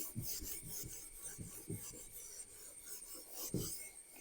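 A board being wiped clean with a duster: faint, repeated rubbing strokes.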